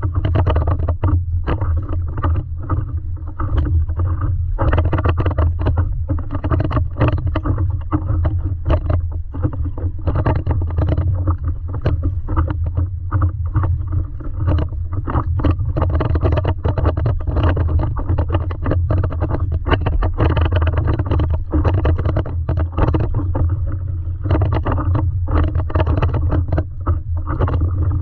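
Water slapping and splashing against a stand-up paddleboard as it is paddled along, in many short irregular splashes, over a steady low rumble.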